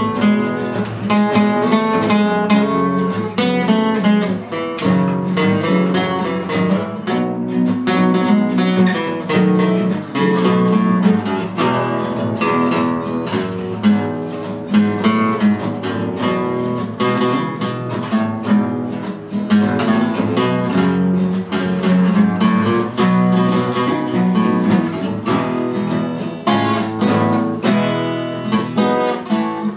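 Two acoustic guitars played together without singing, strummed chords with picked single notes running over them.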